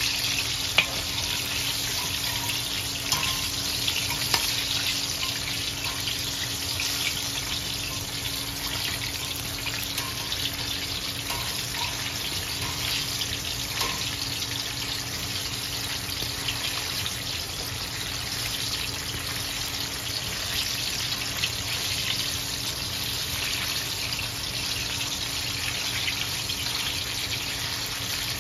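Chicken wings deep-frying in hot oil, a steady sizzle and crackle. A metal slotted skimmer moves through the oil, with a few sharp clicks in the first few seconds.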